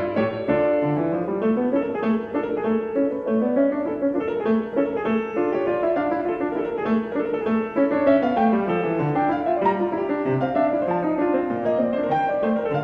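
Piano music, with runs of notes rising and falling over held notes.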